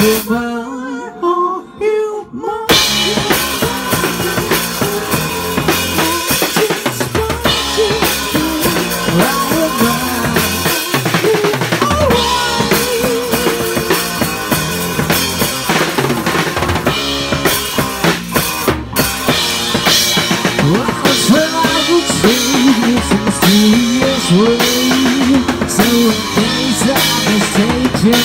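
Rock drum kit played hard, kick, snare and cymbals driving the beat over the song's recorded backing track. About half a second in the drums drop out for about two seconds, leaving only the backing music, then come back in at full force.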